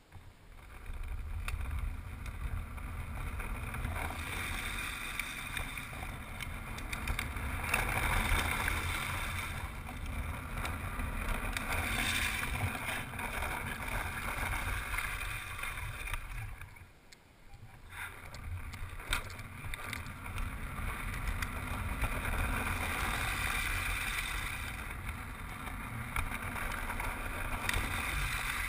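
Homemade drift trike rolling and sliding downhill on asphalt: the hiss and scrape of its PVC-sleeved lawnmower wheels on the road, under a low rumble of wind on the helmet camera's microphone. The noise swells and eases through the run and drops away briefly about two-thirds of the way through.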